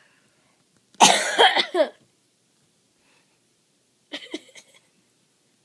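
A person coughing: a loud fit of several coughs about a second in, then a shorter, quieter burst of coughs about four seconds in.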